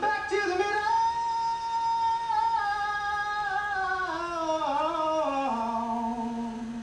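One person singing unaccompanied: a long held high note, then stepping down in pitch to a low note held near the end, fading out.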